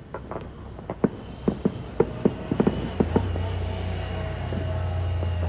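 Fireworks going off: a quick run of about a dozen sharp pops and bangs over the first three seconds. Then a motor vehicle's steady low engine hum comes in, with a tone that falls slowly, as it passes.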